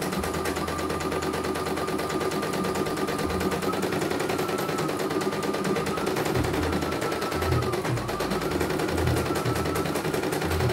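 Computerized embroidery machine running, its needle mechanism rattling rapidly and evenly over a steady motor hum and a faint whine that wavers in pitch, with irregular low thumps in the second half.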